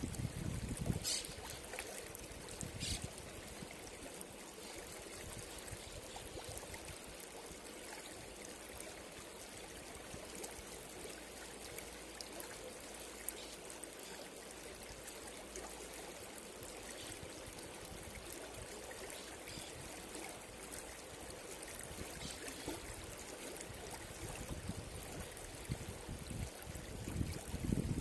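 Shallow rocky river flowing over and around stones: a steady, even rush and ripple of water, with a low rumble in the first second or so and again near the end.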